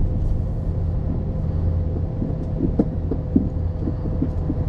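A vehicle's engine running steadily on the road, with a low rumble and a few light knocks and rattles in the middle.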